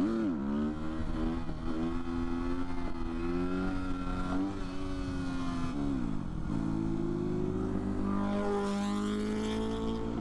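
Motorcycle engine accelerating through the gears, its pitch climbing and then falling back at each shift, with a sharp drop about six seconds in. Near the end a second motorcycle passes by.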